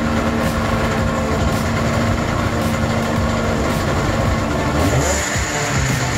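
The two-stroke twin engine of a 2002 Arctic Cat ZR 600 EFI snowmobile running steadily, with a slight shift in pitch about five seconds in.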